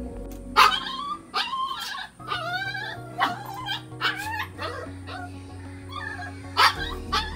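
A dog whining and yelping in short, bending cries, several times, with the loudest near the start and near the end, over a steady background music bed.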